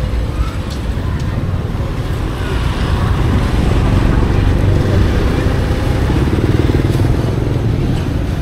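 A motorbike engine running close by, getting louder about three seconds in and easing off slightly near the end.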